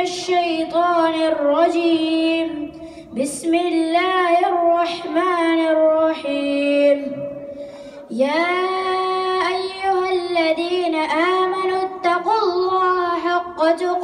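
A boy's voice chanting a melodic Quran recitation (tilawah), amplified through a handheld microphone: long held, wavering notes with ornamented turns, breaking for breath about three seconds in and again around the middle.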